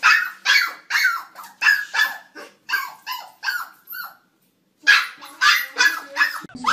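A small black-and-white puppy barking in short, rapid barks, about two to three a second, at its own reflection in a mirror; the barking stops briefly about four seconds in and then resumes.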